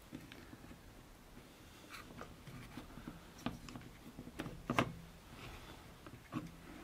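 Light, scattered clicks and taps from handling a small electronic air quality monitor: its clear acrylic cover plate and box-shaped particle sensor module are lifted and shifted on the circuit board. The loudest tap comes a little under five seconds in.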